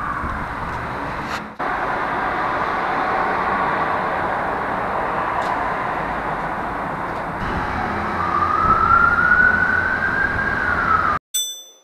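Emergency vehicle siren wailing in slow rising and falling sweeps over a steady wash of city noise; the sound cuts off suddenly near the end.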